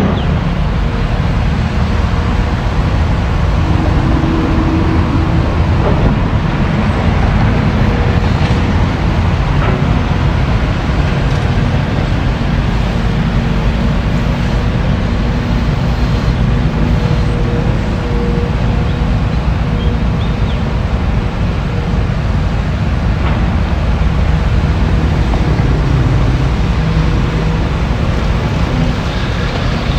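Tracked excavator's diesel engine running steadily as a low, continuous rumble, with a faint steady tone over it.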